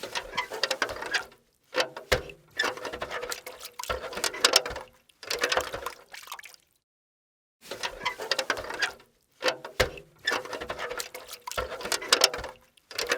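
Steel bucket being handled, in repeated bursts of clanks and rattles over a metallic ring, with short pauses between bursts.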